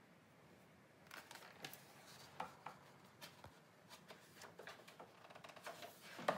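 Faint rustling and soft taps of a large picture book's paper pages being turned and handled, starting about a second in after near silence.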